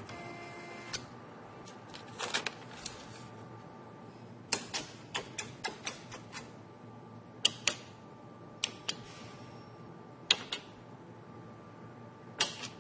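ATM cash dispenser clicking: a string of sharp mechanical clicks over a faint steady hum. A quick run of about seven clicks comes some four and a half seconds in, followed by spaced pairs of clicks.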